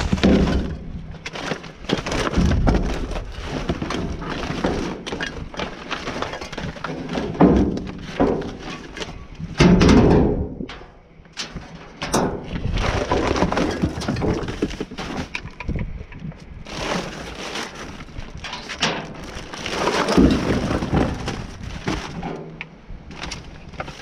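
Rummaging through a bin of discarded household items: continual rustling with knocks and clatters of objects being moved, louder about seven, ten and twenty seconds in.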